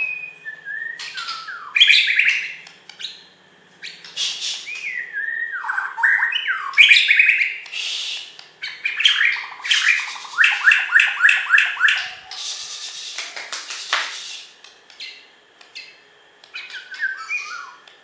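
Bornean white-rumped shama (murai batu) singing: varied whistled phrases with sliding notes, a quick run of repeated notes, about five a second, around ten seconds in, and harsh, noisy notes, in bursts broken by short pauses.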